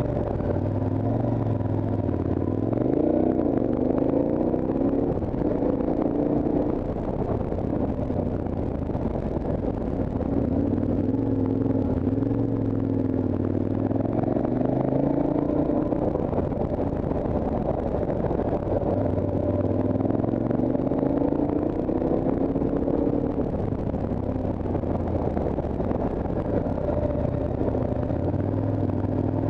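Motorcycle engine pulling uphill, its pitch rising as it accelerates out of hairpin bends and falling as it eases off, several times over.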